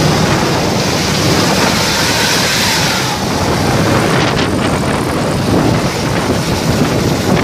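Large bus passing with its engine running, a steady rumble under heavy road and wind noise; no horn tune is sounding.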